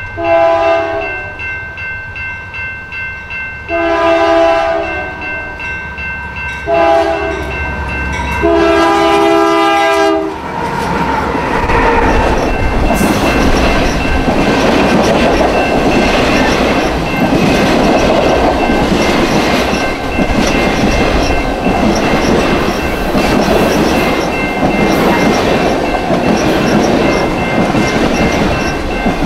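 A Union Pacific diesel locomotive's multi-chime air horn sounds the grade-crossing signal over the first ten seconds: long, long, short, long. The circus train then rolls past close by as a loud, steady rumble of locomotive and cars on the rails. A crossing warning bell rings throughout.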